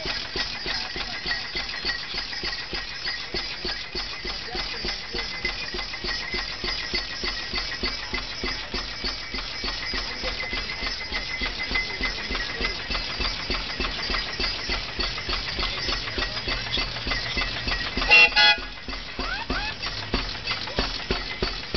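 The Funk Special homemade antique tractor's engine running with a fast, steady clatter. About eighteen seconds in, one of its horns gives a single short, loud toot.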